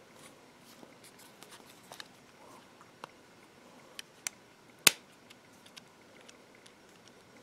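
Small scattered clicks and taps of fingers handling the opened LG Optimus L70 smartphone's battery and plastic frame, with one sharper click about five seconds in.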